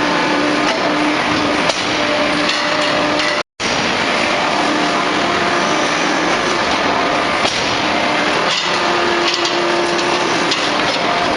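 Hydraulic open-die forging press working: loud, dense industrial noise with a humming tone that comes and goes and scattered sharp knocks. The sound cuts out completely for a moment about three and a half seconds in.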